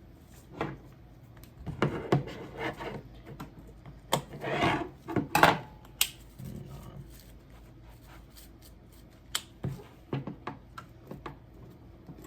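Kitchen scissors snipping and pulling at a tangle of heavy braided fishing line on a baitcasting reel's spool: irregular sharp snips and clicks mixed with short rustling bursts, busiest in the first half.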